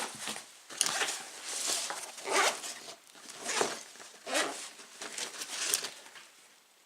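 Gear being handled and moved about: a series of short rustling, rasping sounds of fabric and nylon, roughly one a second.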